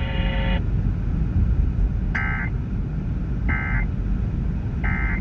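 EAS end-of-message data bursts: three short, identical warbling digital tone bursts, evenly spaced about a second and a half apart, over steady radio-receiver noise. They close the flash flood warning transmission. A steady tone cuts off just after the start.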